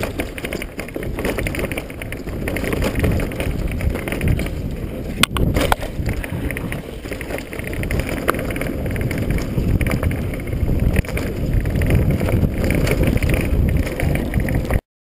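Mountain bike descending a dirt trail at speed, heard from a camera on the rider: steady wind rush on the microphone with tyre noise and scattered knocks and rattles from the bike over bumps, two sharp knocks about five seconds in. The sound cuts off abruptly near the end.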